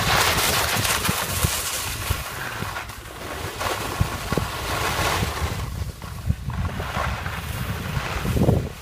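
Wind buffeting the microphone during a downhill ski run, with the hiss and scrape of skis sliding over snow swelling and fading as turns are made.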